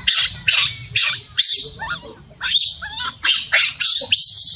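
Infant macaque screaming: a rapid series of loud, shrill screams, about two a second, running together into one continuous scream near the end.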